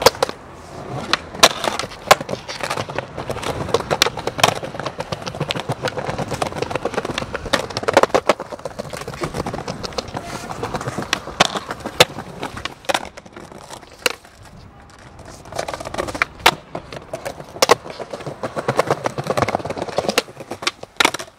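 Skateboard wheels rolling on rough pavement, broken by many sharp clacks of the board popping and landing.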